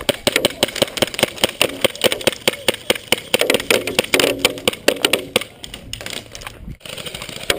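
Airsoft guns firing in rapid, irregular volleys of sharp clicks and cracks, many shots a second, with BBs smacking into targets.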